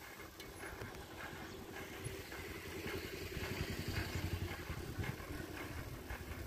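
Wind and road rumble from riding along a paved road, swelling a few seconds in, with faint light clicks throughout.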